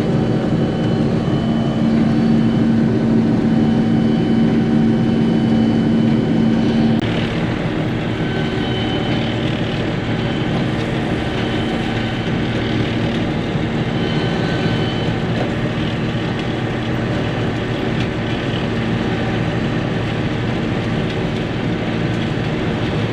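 John Deere 7720 combine running while harvesting corn, heard from inside the cab as a steady machinery drone. About seven seconds in, its strong low hum eases off and the sound becomes a little quieter.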